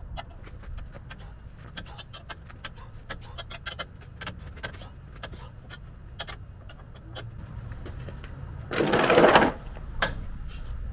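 Irregular light metallic clicks and clinks of hand tools working on truck parts, with a louder rattling scrape lasting just under a second about nine seconds in.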